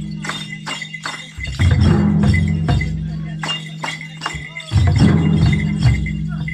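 Several chyabrung, the Limbu double-headed barrel drums, beaten together in a dance rhythm. Clusters of deep, heavy strokes come about every three seconds, with lighter sharp strokes between.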